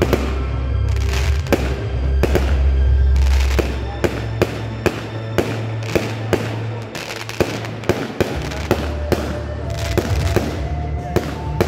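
Fireworks display: aerial shells bursting in a rapid, irregular string of sharp bangs, about two a second, over loud music with heavy bass.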